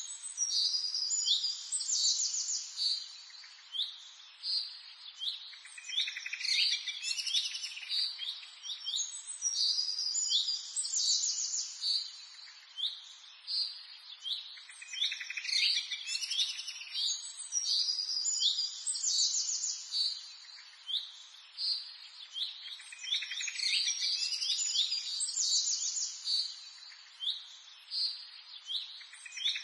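Birdsong: a songbird sings high chirps and fast trills, repeating much the same phrase every four to five seconds.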